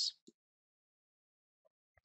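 Silence after the tail end of a spoken word: the audio drops to complete silence for well over a second.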